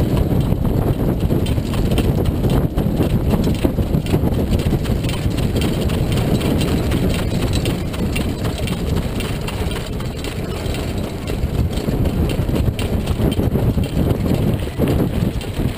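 Harness racehorse's hoofbeats and the sulky rolling over a dirt track at racing speed, heard from the sulky, over a steady low rumble of wind and wheels.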